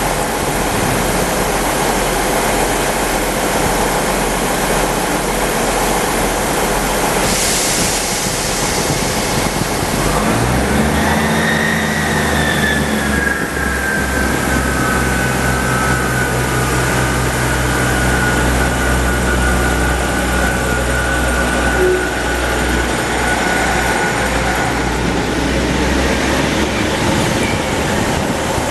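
Two-coach diesel train's engine working, its note rising about ten seconds in and then holding steady, with a high whine that slowly falls in pitch, as the train gets under way.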